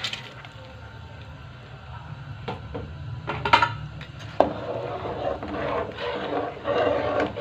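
Metal spoon knocking and scraping against a metal cooking pot while rice is stirred into boiling stock: a few sharp clinks about halfway through, then a busier stretch of stirring to the end, over a low steady hum.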